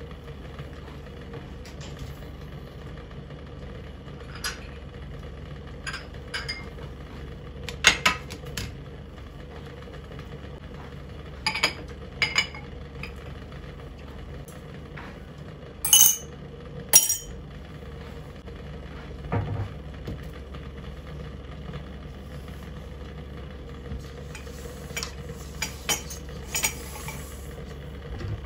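Kitchen clatter: dishes and cutlery clinking and knocking now and then, over a steady low hum.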